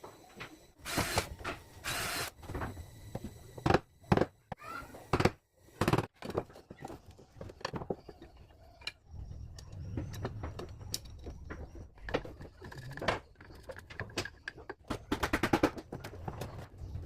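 Scattered knocks, thuds and short scraping noises, as of tools and wood being handled, with a low steady rumble in the second half and faint voices.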